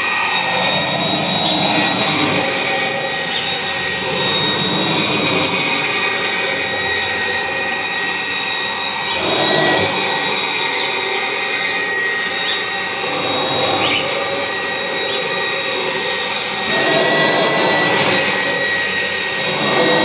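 Kirby G4 upright vacuum cleaner running steadily, its motor and aluminium fan giving a high whine over the rush of air. The sound swells now and then as the head is pushed back and forth over the rug.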